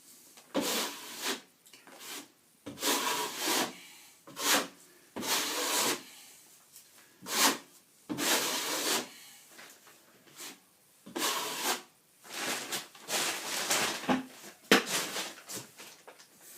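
Plastering trowel swept over a setting plaster patch in a series of irregular rubbing, scraping strokes about a second long each, polishing the surface smooth as the plaster firms up.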